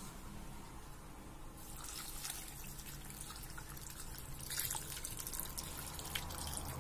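Water being poured from a container into a metal pot of chopped vegetables: a faint trickling and splashing that starts about a second and a half in.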